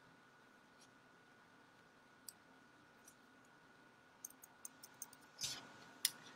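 Near silence with a faint steady high-pitched tone, broken by a few faint, sharp clicks: one about two seconds in, then a quick scatter of them with a soft knock in the last two seconds.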